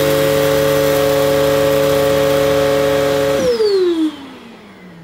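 Electrolux Intensity upright vacuum cleaner running at full power while standing still, loud with a steady whine. About three and a half seconds in it is switched off, and the motor and brushroll wind down with a falling pitch.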